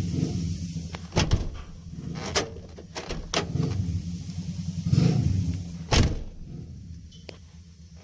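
Dump truck door and latch being worked on freshly lubricated hinges: a series of clicks and clunks, the loudest about a second in and about six seconds in, over a steady low engine hum.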